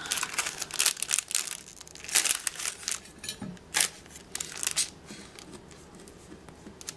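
Crinkly plastic packaging rustling and crackling in irregular bursts as craft die cuts are worked back into their pack, thinning out over the last second or two.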